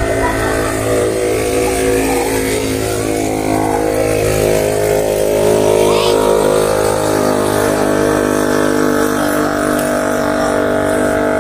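An engine running at a steady speed: a constant, even hum that holds one pitch throughout.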